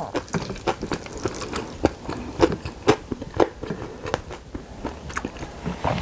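Close-miked chewing of a mouthful of bibimbap, with wet mouth clicks at irregular intervals. A wooden spoon scrapes the glass bowl as the next spoonful is scooped up.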